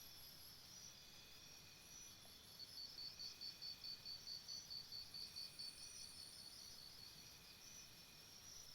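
Faint chorus of insects, crickets among them, in a jungle ambience: steady high shrill tones, with a pulsing chirp at about five a second through the middle of the stretch.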